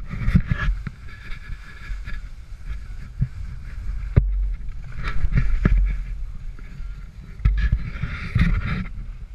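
Telemark skis sliding and scraping over snow in swelling, fading swishes, with wind rumbling on the action-camera microphone and a few sharp knocks, the loudest about four seconds in.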